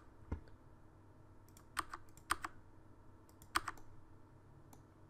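A few separate clicks of computer keys, some in quick pairs, with pauses between them.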